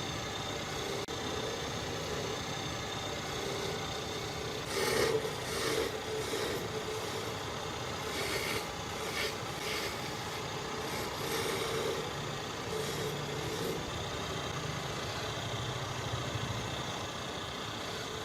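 A power tool runs with a steady hum while an abrasive rasps and rubs against a workpiece, in uneven strokes that are loudest in the middle stretch.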